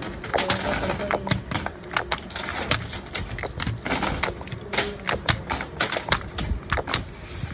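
Rapid, irregular clicking and clacking of small hard objects being handled, over a steady background din.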